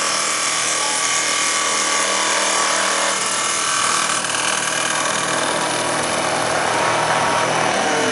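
Automatic CNC wood lathe running, its air-cooled spindle cutter machining a turning wooden workpiece: a steady whine with several held tones over a dense hiss.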